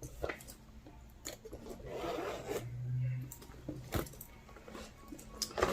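A zip being pulled open on a cosmetic bag, with rasping, rustling and a few sharp clicks as the bag and its contents are handled.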